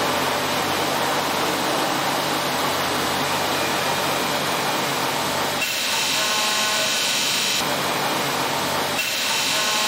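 CNC machine-shop noise: a steady hiss. About five and a half seconds in it cuts abruptly to a high-pitched whine of several steady tones, switches back to the hiss for a moment near eight seconds, then returns to the whine.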